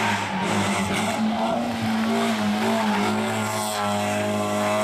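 Toyota Yaris rally car engine running hard at high, fairly steady revs.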